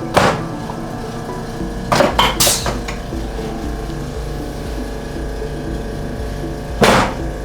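Sharp clicks and knocks from a chiropractic adjustment on a treatment table: one just after the start, three close together about two seconds in, and a louder one near the end.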